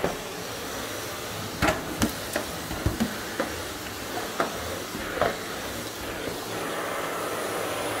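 Upright Hoover vacuum cleaner running with a steady whooshing hiss, with a string of sharp knocks and taps over it: about seven between two and five seconds in.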